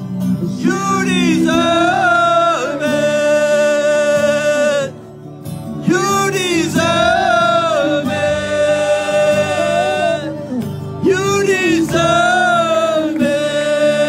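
Live gospel worship song: a solo singer sings three long phrases, each opening with a sliding run and then holding long notes, over steady backing instruments.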